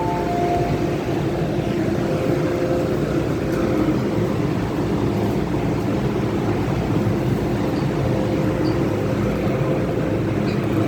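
MTR M-Train electric multiple unit running in an underground station, with a steady rumble and faint, even tones held throughout.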